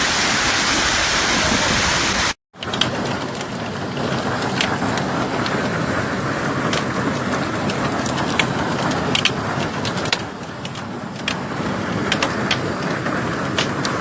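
Heavy hail and rain coming down in a dense, steady wash of noise. After a sudden cut about two seconds in, the downpour goes on with many sharp, separate clacks of hailstones striking.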